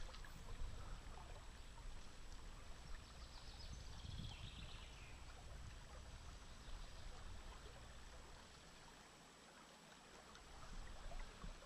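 Faint, steady rush of river water running over a shallow riffle.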